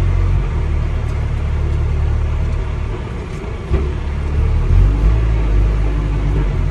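John Deere loader tractor's diesel engine running as the tractor drives along, heard from inside the cab as a steady low rumble.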